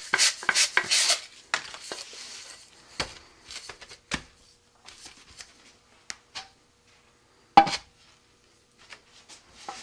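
Quick rubbing strokes of an abrasive pad scuffing a rocket coupler tube for about the first second, then scattered handling clicks and knocks as the tube is picked up and pushed into the nose cone, with one sharp knock about three-quarters of the way through.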